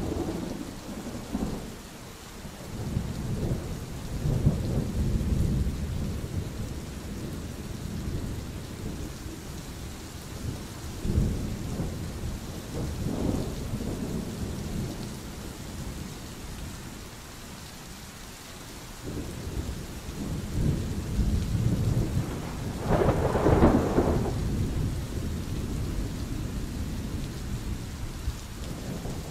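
Steady rain falling through a thunderstorm, with several rolls of thunder rumbling in and fading; the loudest comes about three-quarters of the way through.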